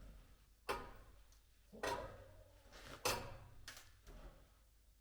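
Sharp metallic knocks, about five, each ringing briefly, as a stuck rusted part on a truck frame is worked and knocked at to free it.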